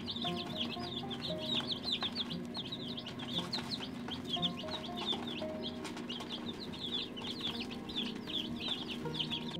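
A brood of young chicks peeping continuously, many quick high peeps overlapping.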